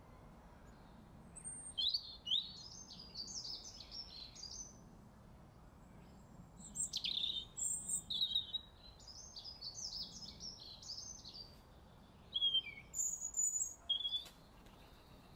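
Small songbird singing: three bouts of quick, high twittering phrases with short pauses between them.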